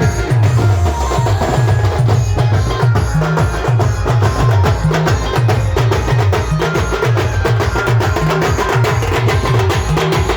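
Band music with a steady, driving drum beat and a repeating bass line under pitched instruments.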